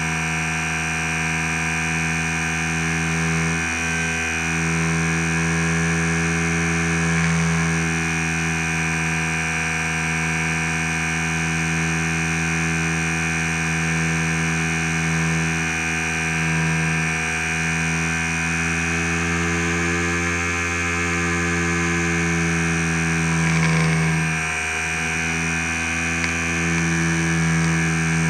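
Electric motor and propeller of a HobbyZone Super Cub RC plane in flight, heard through its onboard camera: a steady buzzing whine over wind rush, wavering briefly about four seconds in and again near the end.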